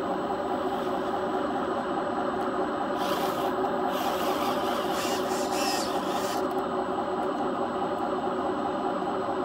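Small electric motors and gearing of a radio-controlled construction model running steadily: a rough mechanical whir with a few steady whining tones in it.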